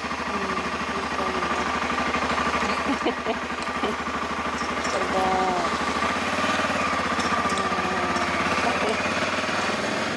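Motorcycle engine running steadily at a low, even beat, with faint voices over it.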